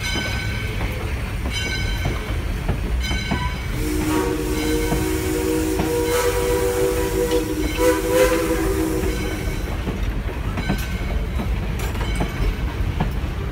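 Steam locomotive whistle blowing a long chord of several notes, from about four seconds in until about nine and a half seconds. Before it a bell rings with slow, evenly spaced strokes. Throughout, the passenger cars rumble and clatter over the rails as they roll past.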